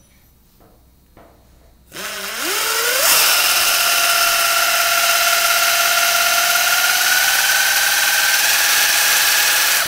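Pneumatic 3M Dynamic Mixing body filler gun running as it dispenses a bead of mixed filler. Its air motor spins up with a rising whine about two seconds in, then runs steadily with a loud air hiss under the whine, which edges slightly higher near the end before the gun stops abruptly.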